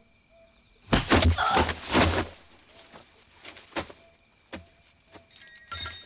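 Animation sound effects of a brief scuffle: a quick cluster of heavy thuds and rustling about a second in, lasting about a second and a half, then a lighter knock near the end.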